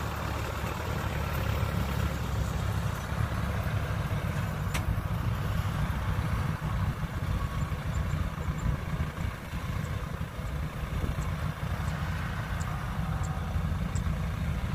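Yanmar AW82V combine harvester running steadily with a continuous engine drone while working through a rice field.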